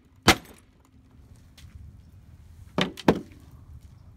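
A hammer striking a plastic calculator lying on a glass tabletop, breaking it apart: one sharp crack about a quarter second in, then two more in quick succession near the end.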